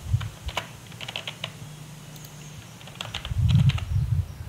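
Computer keyboard typing: irregular keystroke clicks as a password is entered. A louder low rumble joins in over the last second and a half.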